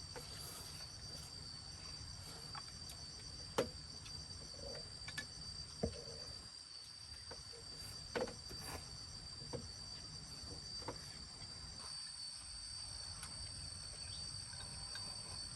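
Steady, high-pitched chorus of insects such as crickets or cicadas, one continuous shrill tone with fainter higher ones above it. A few short, sharp knocks stand out over it, the loudest about three and a half seconds in.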